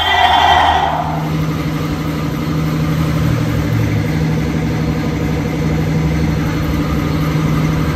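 Steady machine hum from a running motor, with a brief louder sound in the first second.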